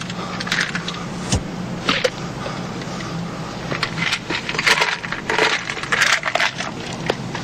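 Inside a moving truck's cab: a steady low engine hum under scattered clinks, rattles and short scraping bursts, busiest just past the middle.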